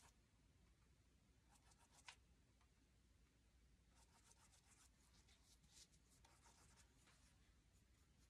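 Very faint scratching of a paintbrush stroking paint onto wood, in a few short runs of quick strokes.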